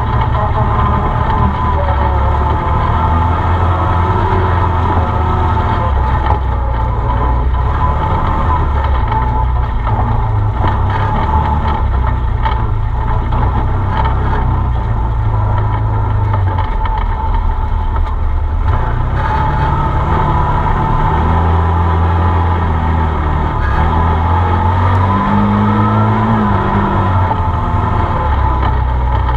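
Arctic Cat Wildcat side-by-side's twin-cylinder engine running under way on a dirt trail, its revs rising and falling as it drives, heard from inside the open cab.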